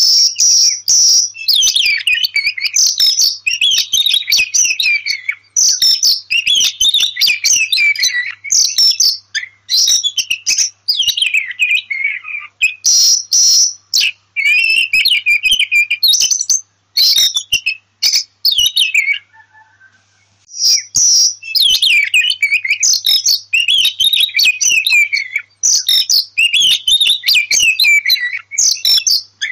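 Oriental magpie-robin (kacer) singing: a loud, continuous run of varied whistled phrases and sharp chattering notes, with a short break about two-thirds of the way in.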